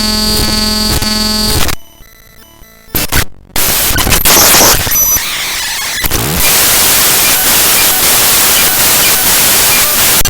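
The raw bytes of the avcodec.dll library file played straight as audio: harsh digital noise and static. It opens with a buzzy chord of steady tones, drops to near quiet about two seconds in, and turns to loud hiss again from about three and a half seconds.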